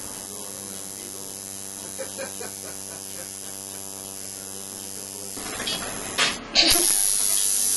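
Electric tattoo machine buzzing steadily as its needle inks a dog's ear. The buzz stops about five seconds in, and near the end a loud hiss sounds for about a second.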